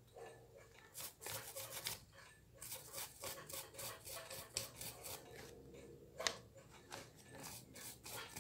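Toothbrush bristles scrubbing a steel watch case and its lugs, in quick bursts of short scratchy strokes with brief pauses, and one sharp click a little after six seconds in.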